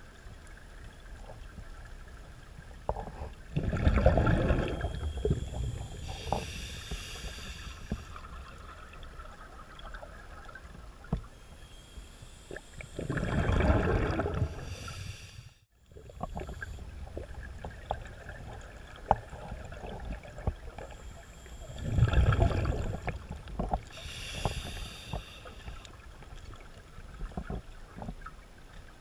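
Scuba breathing heard underwater: exhaled bubbles from a regulator rumble out three times, about nine seconds apart. Each exhalation is followed by a hissing inhalation through the regulator, with scattered small clicks in between.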